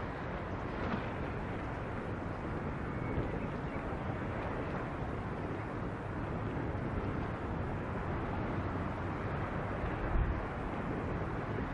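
Strong wind rushing over the microphone, a steady noise with a low rumble, and a harder gust about ten seconds in.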